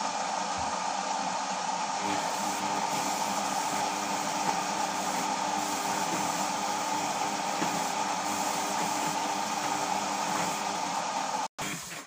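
Samsung WF6520N7W front-loading washing machine on a quick wash, taking in water: a steady rushing hiss, with a low hum joining about two seconds in and dropping away near the end. The sound cuts off suddenly just before the end.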